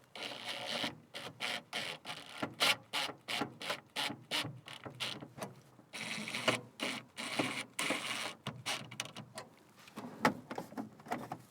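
Screwdriver driving the screws of a plastic overhead console: rapid irregular ratcheting clicks, with stretches of scraping about a second in and again in the middle.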